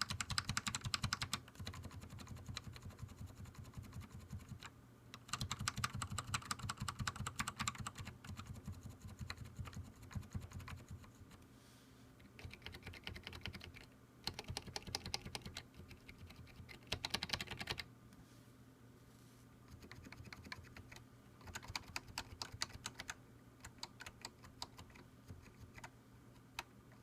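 Keys on a keyboard with Matias Quiet Click tactile switches pressed rapidly in bursts of clicks with short pauses between. Some bursts are clearly louder and clickier than others, the noise these switches make when a key is pushed down off-center at an angle.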